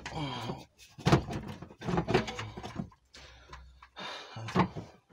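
Clunks and knocks of a Peugeot 106 rear exhaust silencer being worked loose by hand from its pipe joint: sharp impacts about a second in, around two seconds and near the end.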